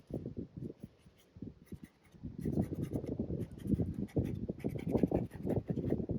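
Paintbrush working oil paint in short, irregular scratchy strokes, sparse at first and busier from about two and a half seconds in.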